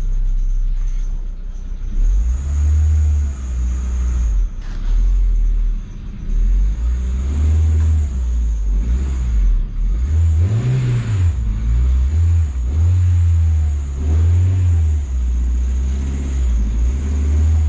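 2001 Ford Focus engine running as the car is driven, its rumble rising and falling with the throttle and climbing briefly about two-thirds of the way through. A thin, steady high squeal runs over it the whole time.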